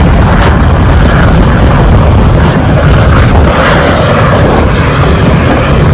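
Steady, loud rumble of a vehicle driving at highway speed, road and wind noise heard from inside the cab.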